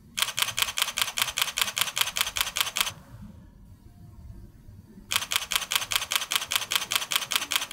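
Fujifilm X-T30 II mechanical shutter firing in continuous-shooting bursts at 1/250 s: two rapid runs of even clicks at about eight shots a second, each about three seconds long, with a pause of about two seconds between them.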